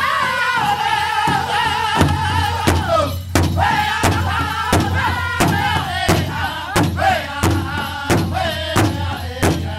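Powwow drum group singing in unison, high-pitched, while beating a large powwow drum together with drumsticks at a steady pulse of about one and a half strokes a second. The drum strokes get heavier about two seconds in.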